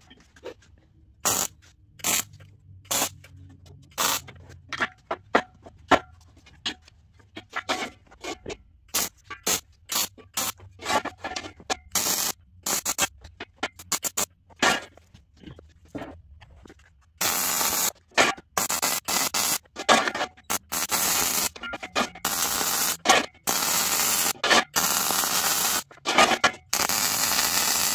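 MIG welding arc on 14-gauge square steel tube, crackling in many short tack welds one after another, then in longer weld runs with brief pauses from a little past halfway.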